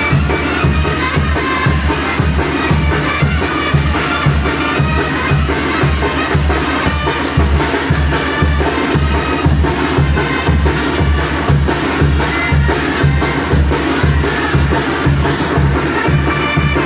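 Dance music with a strong, steady bass beat, played loud through a mobile disco sound system.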